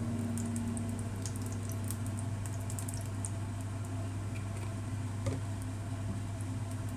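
A little cooking oil heating in a rectangular pan on an electric hob, giving faint, scattered crackles over a steady low hum, with one small click about five seconds in.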